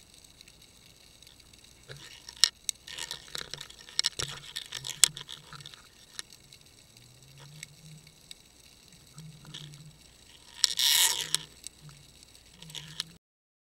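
Sharp clicks, knocks and scrapes on an underwater fishing camera's housing as a blue swimmer crab grabs and handles it, with a louder scraping burst near the end. The sound cuts off suddenly just before the end.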